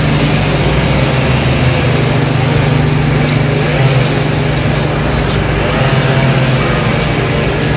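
Engine-powered grass trimmers and a ride-on lawn mower running together, a steady engine sound with a higher tone that wavers a little.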